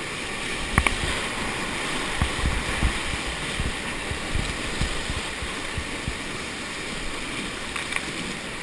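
Rushing river water around a raft in whitewater, a steady noisy wash, with scattered low thuds and a sharp knock about a second in.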